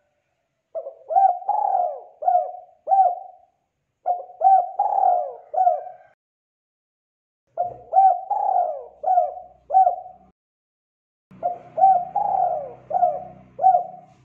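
Spotted dove cooing: four repeated call phrases of four or five notes each, with short pauses between them. A faint low hum joins under the last phrase.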